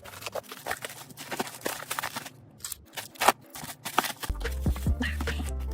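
A run of small irregular clicks and taps, with one sharper knock about three seconds in, typical of tools working on a phone during a repair. About four seconds in, music with a deep steady bass comes in.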